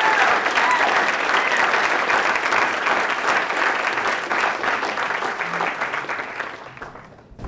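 Audience applauding in a hall, the clapping dying away near the end.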